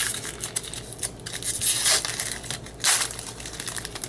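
Trading cards and foil pack wrappers being handled, with crinkling and rustling and the flick of cards. There are louder rustles about two and three seconds in.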